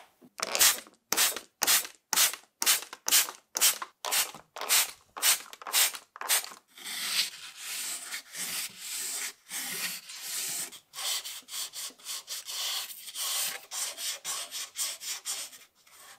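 Wet sanding of painted thin sheet metal with 1000-grit waterproof sandpaper, smoothing the paint joints. Evenly spaced rubbing strokes about two a second for the first six seconds, then faster, more continuous rubbing.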